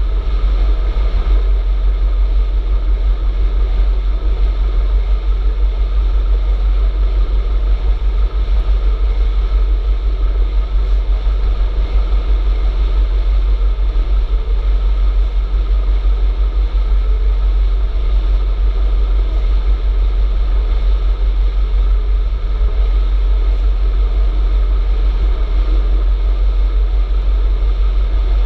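Steady, loud wind rumble on the microphone of a camera riding on a moving electric bicycle, with an even hiss of road noise above it.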